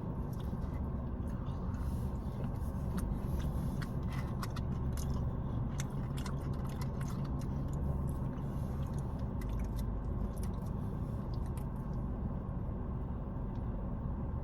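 Person chewing and biting food, with scattered light clicks of a plastic spork against the bowl, over a steady low hum of a car. The clicks thin out after about ten seconds.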